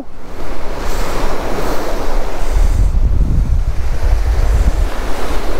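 Strong wind buffeting the microphone over the wash of breaking surf, with heavier gusts from around the middle.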